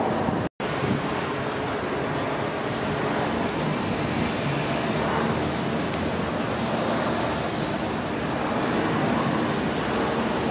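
Steady road traffic noise from passing vehicles, cutting out for a moment about half a second in.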